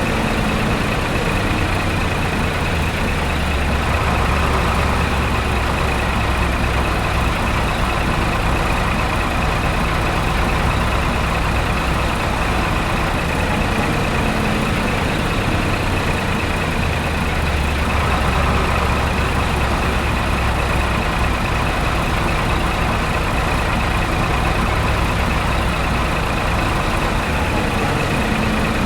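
Truck engine running steadily, its low rumble swelling twice as if under more throttle.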